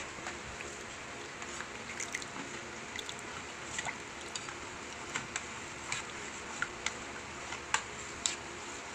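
Spoon stirring a thick mixture of milk, sago pearls and diced mango: wet squishing with irregular small clicks of the spoon against the pot, the sharpest near the end.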